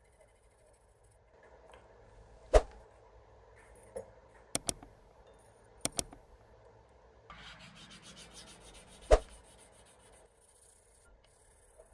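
A hand-held block scraping and rubbing across a stainless-steel cleaver blade, with several sharp clicks and knocks of the block against the metal: one about two and a half seconds in, two quick pairs around four to six seconds in, and the loudest about nine seconds in, during a stretch of harder scraping.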